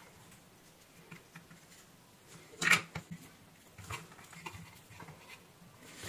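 Faint handling noises at a workbench: small clicks and taps from hands, tools and wires, with one louder short knock-and-rustle a little under three seconds in and a few softer ones around four seconds.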